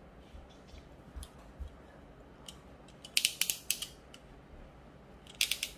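Crimping pliers clicking as they squeeze a straight metal sleeve shut on thick nylon fishing line: a quick run of sharp clicks about three seconds in and another near the end, with a few softer ticks earlier.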